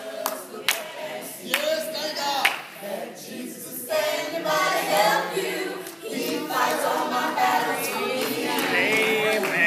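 A small gospel group of mixed male and female voices singing in harmony without instruments, with hand claps keeping time.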